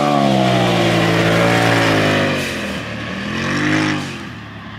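Polaris RZR Turbo S side-by-side's turbocharged engine running hard, its note sinking as the machine passes and lets off. A short rev rises and falls near the end before the sound fades away.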